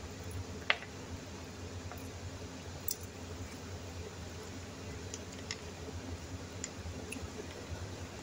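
Eating noises at a table: soft chewing and a few small clicks, with one sharper click about a second in, over a low steady hum.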